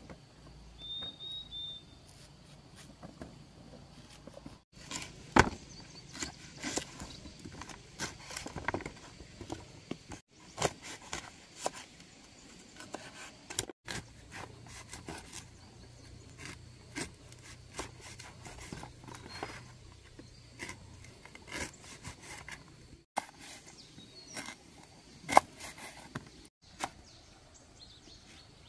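Knife chopping through unripe seeded bananas and knocking on a wooden cutting board: short, irregular chops, a few a second. There is a short high chirp about a second in.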